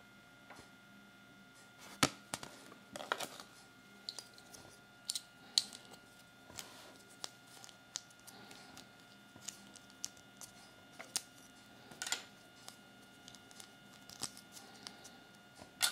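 Small plastic Kinder Surprise toy pieces clicking and tapping irregularly as fingers handle and fit them together, with a few soft paper rustles from the toy leaflet.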